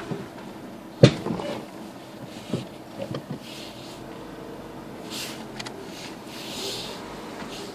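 Renault Mégane Mk2 giving a single sharp clunk about a second in, the knock it makes when the brake is applied while reversing. A few fainter knocks follow.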